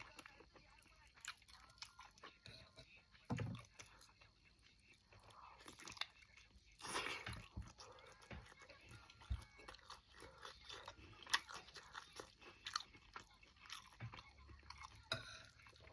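A person eating close to the microphone: chewing and biting with scattered small crunches and mouth clicks, and a longer, louder bite about seven seconds in.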